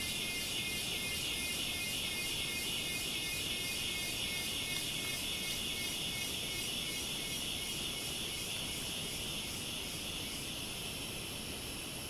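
Cicadas shrilling in a high-pitched, rapidly pulsing chorus that eases slightly over the last few seconds.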